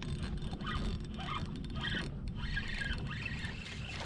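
Wind on the microphone and small waves lapping at the boat, a steady low rumble, with faint scattered clicks and chirps above it.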